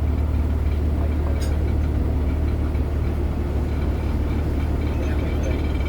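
Boat engine running at a steady speed, a loud, even low hum.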